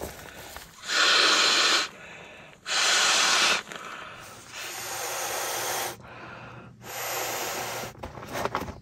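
Breaths blown by mouth into the valve of an inflatable sleeping pad: four long rushing blows a little over a second apart, the first two loudest.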